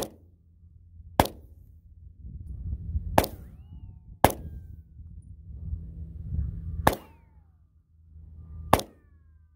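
9mm Polymer80 pistol built on the Glock 19 pattern, fired as a string of six single shots, each a sharp crack, unevenly spaced one to three seconds apart.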